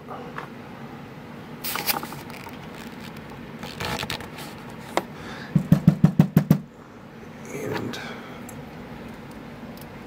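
A brass padlock handled on a rubber bench mat: scattered clicks and scrapes, and a quick run of about eight knocks about six seconds in.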